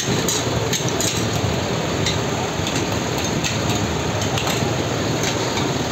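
Metal spatulas and a ladle scraping and clinking against a large steel tawa as chicken liver fry is stirred and served, with irregular sharp clicks over a steady loud background din.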